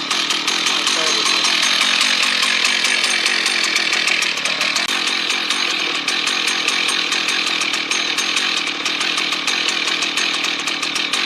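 Rebuilt Husqvarna 1100 two-stroke chainsaw, fitted with a pattern Husqvarna 395 carburettor, running hard and cutting wood at a steady high rev.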